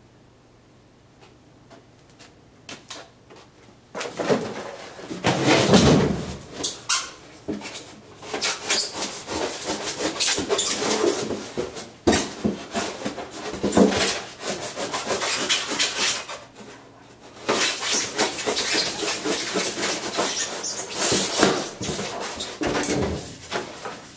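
Styrofoam being broken up and rubbed by hand: squeaky, crackling rubbing with many sharp snaps, starting about four seconds in and pausing briefly twice.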